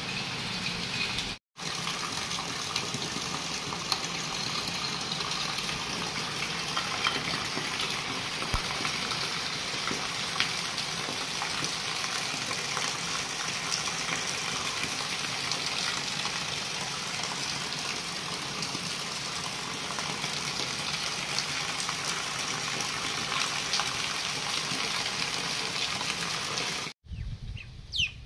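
Heavy monsoon rain pouring onto a concrete farmyard, a steady hiss of downpour. Near the end it cuts off and a bird chirps a few times.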